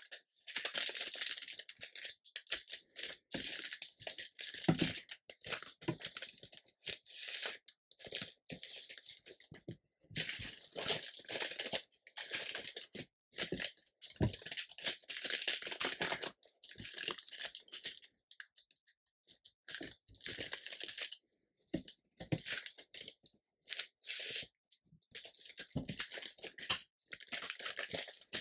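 Parchment-paper air fryer liners crinkling and rustling in irregular bursts, with short pauses between, as the folded pieces are handled and glued together.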